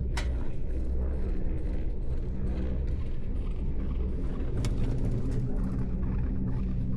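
Chairlift running: a steady low rumble with two sharp clicks, one right at the start and one about four and a half seconds in.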